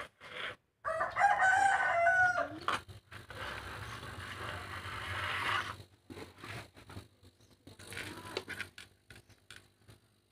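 A rooster crows loudly about a second in, over a low steady hum. A hissing noise follows and stops about six seconds in, leaving only scattered faint clicks.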